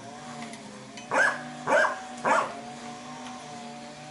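A dog barking three times in quick succession, about half a second apart, over a steady hum.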